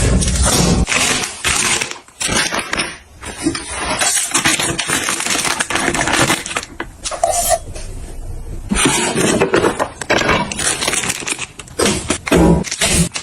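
Hard household objects clinking and clattering, many small irregular knocks in quick succession, with a brief lull partway through.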